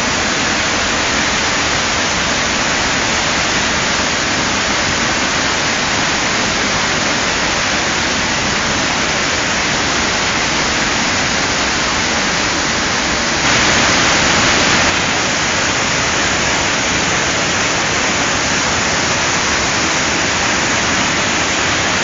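Dismal Falls' whitewater pouring over rock ledges at close range: a loud, steady rush of falling water. It swells briefly louder for about a second and a half a little past halfway.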